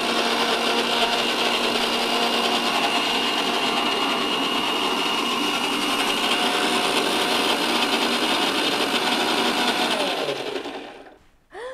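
Electric mixer grinder with a stainless steel jar running steadily, blending cooled curry with almonds. Near the end it is switched off and the motor spins down.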